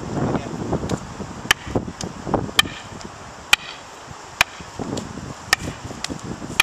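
Fighting sticks clacking together as strikes are blocked, about six sharp, hard knocks roughly a second apart.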